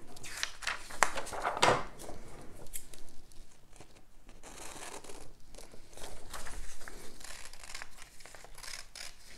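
Sheets of printed paper rustling and crinkling as they are handled and lifted, then scissors beginning to snip through the paper near the end.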